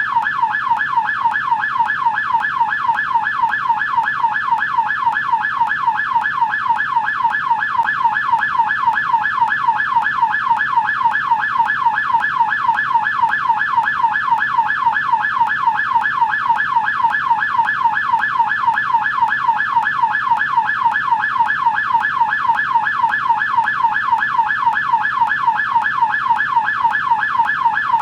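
American police car electronic siren on the yelp setting: a loud, steady, fast-warbling wail that sweeps up and down in pitch several times a second without a break.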